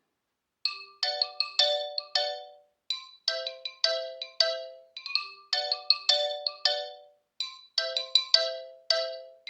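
OnePlus 12 ringtone playing: a short melodic phrase of quickly fading notes, repeated about every two and a half seconds, starting about half a second in.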